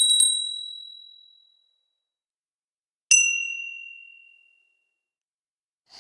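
Two bright ding sound effects, one after the other about three seconds apart, each struck sharply and ringing away over about a second and a half; the second is lower in pitch.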